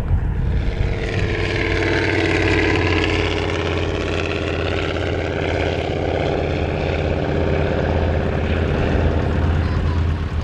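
The twin radial engines and propellers of an Avro Anson T21 drone steadily as it flies low on its approach to land. A higher propeller whine falls and then rises in pitch over the first few seconds.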